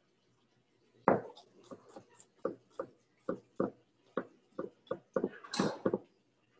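Kitchen knife chopping on a cutting board: a run of sharp knocks, two to three a second, with a short scrape about five and a half seconds in.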